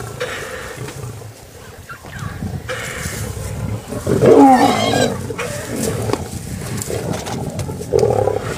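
Lions growling over a zebra kill as they feed, a low rumbling growl throughout with a louder growl about four seconds in and another near the end.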